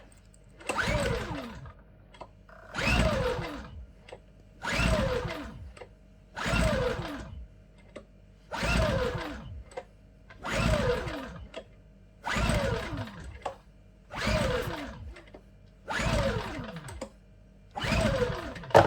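Champion 8200i dual-fuel inverter generator being cranked about ten times in a row on LPG. Each attempt is a whirring burst of about a second that falls in pitch as it spins down, and the engine never catches: it will not start on LPG.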